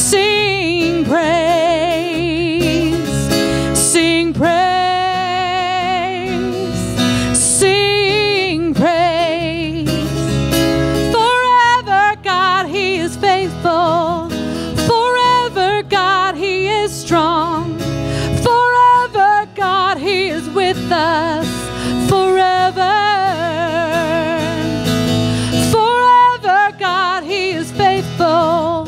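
Live worship band music: a woman singing a melody with vibrato over acoustic guitar and electric bass.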